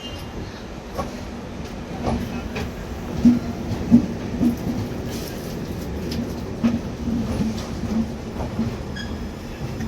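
Express passenger train's coaches rolling past, a steady low rumble with irregular knocks of the wheels over rail joints, a clickety-clack that picks up a few seconds in.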